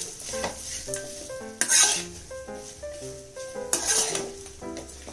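Slotted steel spoon scraping and stirring rice in a metal kadai, in several strokes, the loudest about two seconds in and another near four seconds. Soft background music plays underneath.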